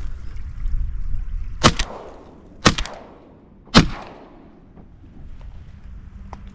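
Three shotgun shots about a second apart, each followed by a short echo, over a steady low rumble. The third shot downs the duck.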